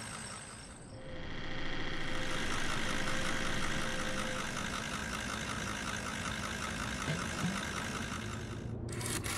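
Cartoon engine sound of a small van driving along: a steady motor with a fast, even pulse that comes up about a second in. Near the end it gives way to a brighter, different noise.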